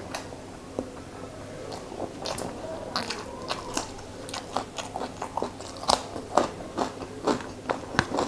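Close-miked chewing of a mouthful of rice and fish curry: a run of sharp mouth clicks and crisp crunches that gets busier about two seconds in.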